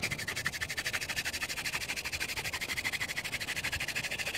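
Elder hand-drill spindle being spun between the palms into a chaga fungus hearth, giving a rapid, rasping squeak that pulses many times a second. This is the warm-up stage of a friction-fire hand drill, before heavier pressure is applied.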